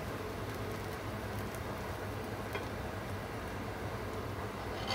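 Cherry-balsamic glaze left in the hot pan sizzling in a steady, even hiss after the burner is turned off, over a low hum, with a faint click about two and a half seconds in.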